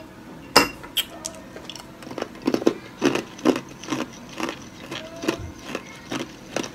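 Close-miked chewing of crunchy food: a sharp crunch about half a second in, then a regular crunching about twice a second.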